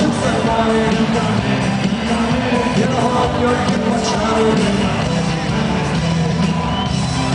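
Live band music with a singer.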